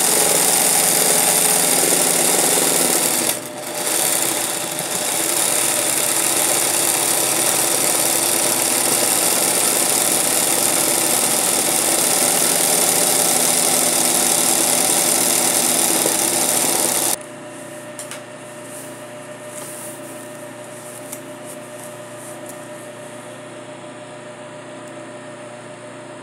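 20U-type industrial zig-zag sewing machine running fast and steadily, stitching free-motion embroidery through hooped cloth. It pauses briefly a few seconds in, then stops suddenly about two thirds of the way through, leaving a quieter steady hum.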